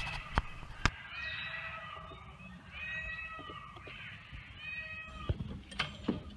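A run of about four short, pitched, mewing animal calls, one after another, with a few sharp knocks before and after them.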